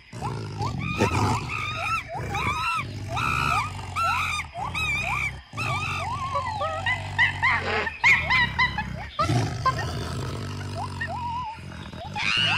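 Repeated short, high-pitched calls that rise and fall, about two a second, over a low steady drone.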